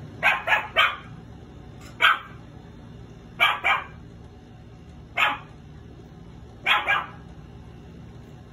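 Three-month-old Shih Tzu puppies barking at their reflection in short, sharp barks: a quick run of three, then single barks and pairs about every second and a half.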